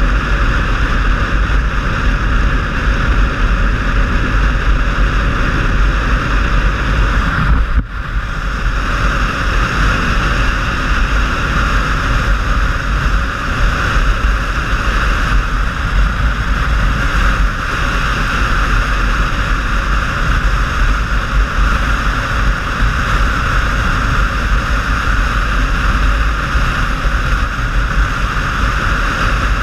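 Steady wind rush and road noise of a motorcycle ridden at speed, with heavy wind buffeting on a helmet-mounted microphone and the engine running underneath; the noise drops briefly about eight seconds in.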